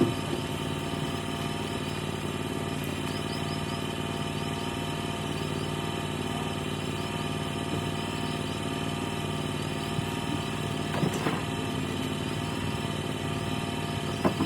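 An engine running steadily at an unchanging speed, with faint high chirps repeating above it.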